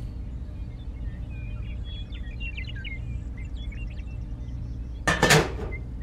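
Small birds chirping over a steady low hum, then about five seconds in a short scrape and clatter as a model bridge deck panel is handled and set down on the ground.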